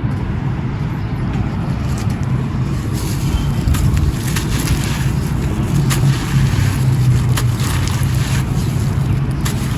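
Gritty grey concrete chunks crumbling and crunching, with scattered sharp crackles over a steady low rumble.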